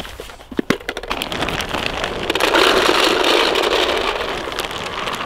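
Paintballs poured from a plastic bag into a paintball hopper, a dense rattle of balls tumbling in. It starts with a few clicks, builds about a second in, is loudest around the middle and eases off near the end.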